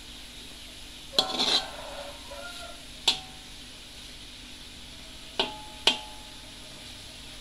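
A slotted spatula scraping and knocking against a metal wok while dry fish floss is stir-fried. A scrape comes a little after a second in, then a sharp knock at about three seconds and two more close together near the end, each leaving a brief metallic ring from the pan.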